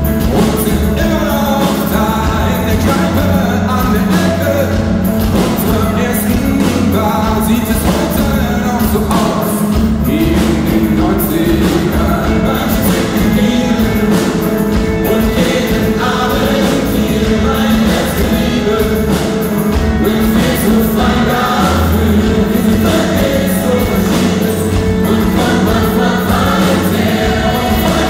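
Live pop-rock band with electric guitars playing while a large gospel choir sings along, heard from the crowd in a concert hall.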